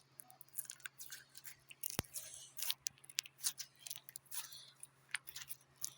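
Slime being squished and worked in the hands, making irregular wet clicks and crackles, with one sharp click about two seconds in.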